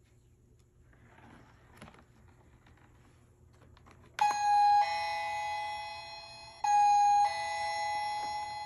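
Toy dollhouse's battery-powered electronic doorbell pressed twice, each time playing a ding-dong chime: a short high note, then a longer lower note that fades. The second press comes before the first chime has fully died away.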